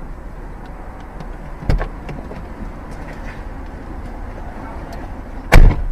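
Steady low rumble of a car idling, with a sharp knock about a second and a half in and a much louder, short thump near the end.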